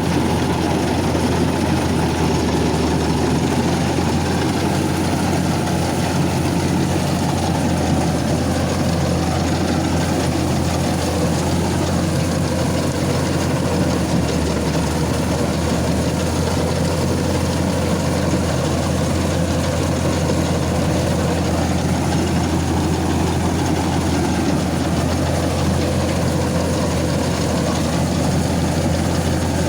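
Combine harvester's diesel engine running at a steady speed, a constant low hum with no change in pitch or load.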